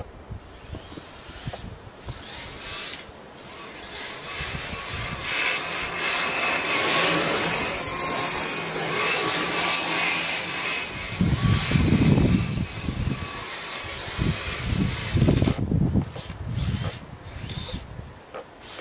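An RC snowcat's twin brushless electric motors (2838, 2800KV) driving its tracks: a whirring whine over a rushing, rubbing noise that builds a few seconds in. In the second half, low irregular thuds come and go.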